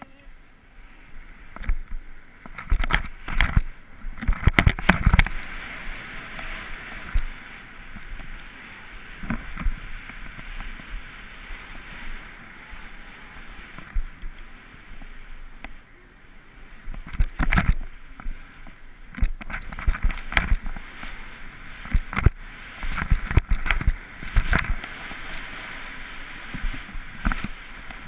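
Skis hissing and scraping over snow, picked up by a camera riding with the skier, broken several times by clusters of sharp knocks and thumps.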